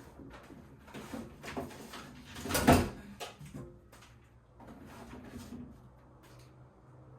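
Food packages and containers being handled and stacked in a freezer: a run of short knocks and rustles, with one louder clatter about two and a half seconds in.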